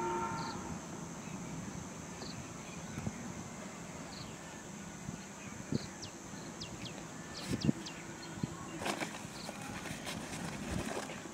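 Rural outdoor ambience: a bird gives a short high call about every two seconds, with a few quick chirps midway, over a steady high insect hum. Soft clicks and rustles of hands working cloth and string at the end of a plastic pipe come through, the loudest just past the middle.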